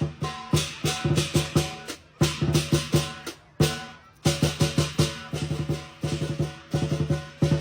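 Lion dance drumming: a big lion drum beaten with cymbals crashing along in a driving rhythm. The playing breaks off briefly near the middle, and a quick run of lighter hits comes near the end.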